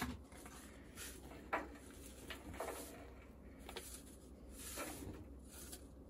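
Baking soda shaken out of a plastic bottle into the drum of a front-loading washing machine: a sharp click at the start, then about half a dozen soft, irregular shakes of powder.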